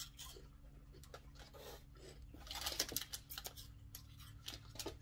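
Faint rustling, crinkling and small clicks of snack packets and the cardboard box being rummaged through, thickest about halfway through, over a low steady hum.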